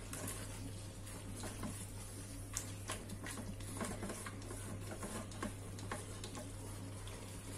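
Silicone spatula stirring squid pieces in tomato sauce in the metal pot of an electric multicooker, with light irregular taps and scrapes against the pot over a low steady hum.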